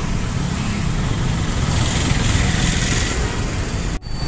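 A moving bus, heard from inside: a steady low engine and road rumble, with a louder hiss about halfway through. The sound breaks off abruptly near the end.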